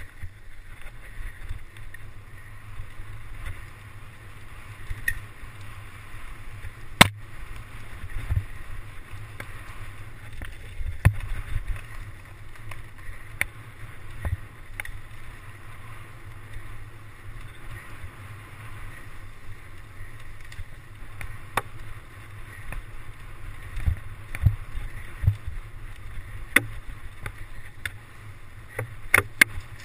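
Mountain bike rolling fast over a rough dirt trail: a steady rumble from the tyres and wind on the microphone, broken by sharp knocks and rattles as the bike jolts over bumps, the loudest about seven and eleven seconds in.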